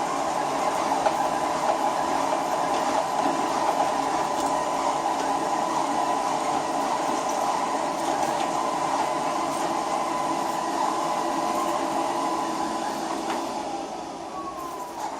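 Polaris PVCR 0920WV robot vacuum running, a steady whirr with a whine from its suction fan and brushes. About a second before the end it gets quieter and a tone slides down in pitch.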